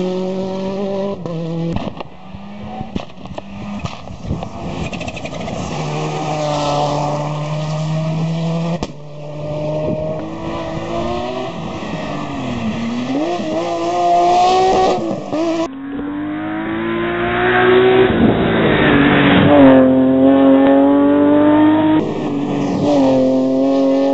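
Hillclimb competition cars' engines revving hard as they accelerate uphill, the pitch climbing and dropping back with each gear change. It comes as several short runs with abrupt changes between them.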